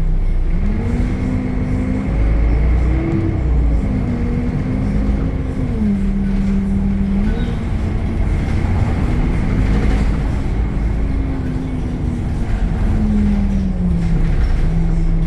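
DAF diesel engine of a Temsa Avenue LF city bus running under way, its pitch rising and falling several times, with a steady high whine throughout.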